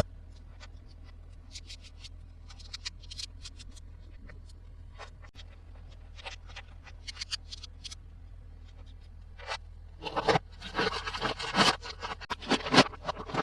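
Hands handling plastic toys and their packaging: scattered light clicks and taps, then a stretch of dense rubbing and crinkling from about ten seconds in.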